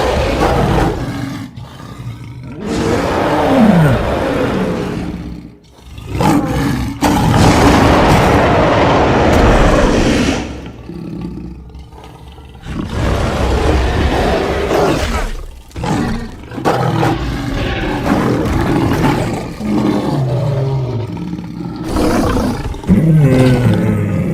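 Giant-cat creature sound effect: a string of loud roars and growls, mixed from big-cat recordings such as leopard, lion, tiger and sabre-tooth cat, with short breaks between calls and some roars falling in pitch.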